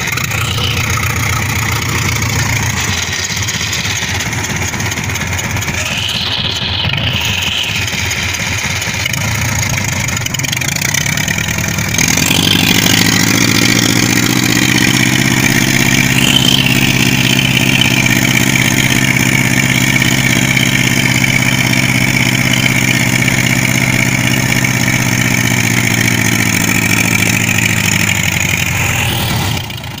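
Engine of a farm transport vehicle running steadily, then louder and steadier in pitch from about twelve seconds in as the vehicle drives along the field.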